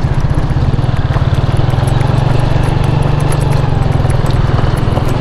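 Honda CG125's single-cylinder four-stroke engine running steadily while the motorcycle is ridden, heard from the rider's position, with a continuous rush of wind and road noise.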